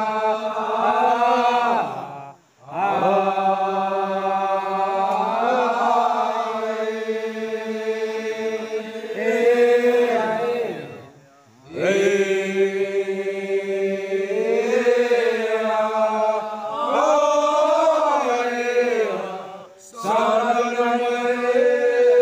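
Group of men singing a Manggarai ritual chant: a low held drone under a slowly wavering melodic line, sung in long phrases of about eight seconds, each broken off briefly for breath.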